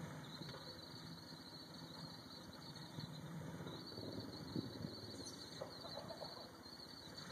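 Rock-crawling 4x4's engine running faint and steady at low revs as the truck creeps down a steep boulder trail, with a brief knock about halfway through.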